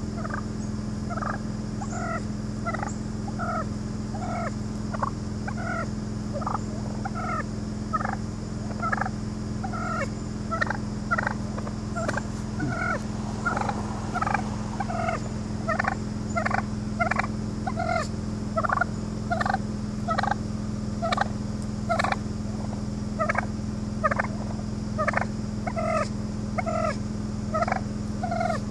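Wild turkeys calling in short, repeated notes, about one or two a second, over a steady low hum.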